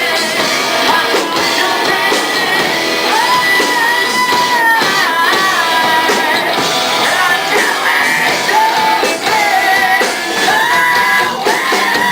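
Rock song playing: a singing voice carries the melody over a full band with guitar, loud and unbroken.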